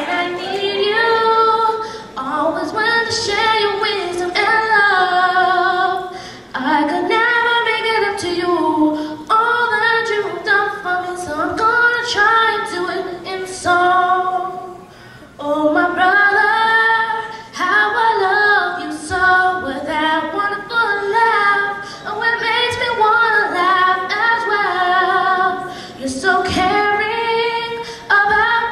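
A young girl singing a cappella into a handheld microphone, with no accompaniment. She sings in phrases with short breaks between them, and some held notes waver slightly.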